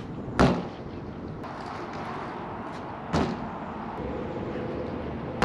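BMX bike landing on concrete after bunny hops: three sharp impacts, the first just under half a second in, the next about three seconds in and the last at the very end, over a steady background rush.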